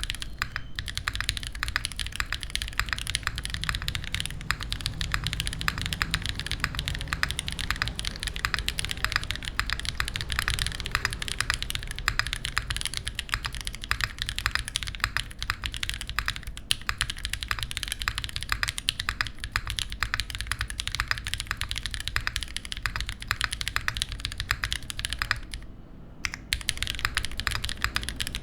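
Steady, fast typing on a RAMA Works Thermal leaf-spring-mounted mechanical keyboard with stock Aflion Melody switches, a polished aluminium beam plate and GMK keycaps: a dense stream of key clacks, with a brief pause near the end.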